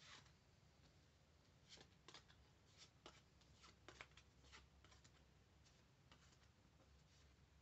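Pokémon trading cards being flipped through and laid down one at a time on a playmat: a dozen or so faint, short card snaps and taps at an irregular pace, stopping about six and a half seconds in.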